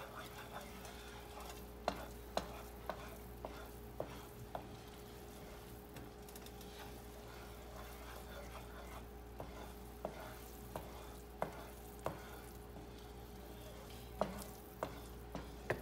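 Chickpea flour roasting in oil in a frying pan, a soft steady sizzle, while a wooden spatula stirs it, knocking and scraping against the pan about once a second.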